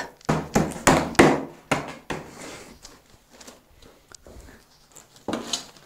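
A gloved fist knocking on a wooden frame, about six sharp knocks in quick succession in the first two seconds, then softer handling sounds and one more knock near the end.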